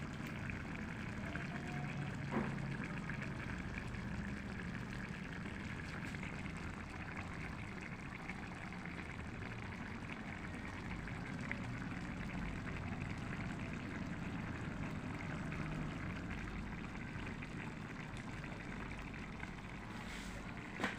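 Food cooking in a pan on the stove, a steady hiss.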